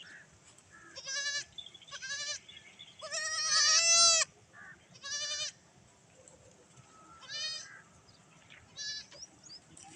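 Baby goats bleating: about six high, quavering calls, the loudest and longest about three to four seconds in.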